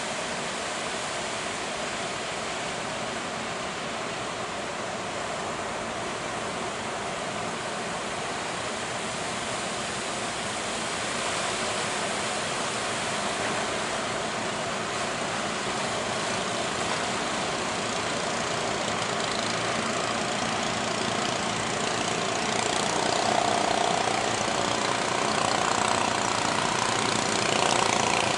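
A boat engine running over a steady rush of surf, the engine growing louder near the end.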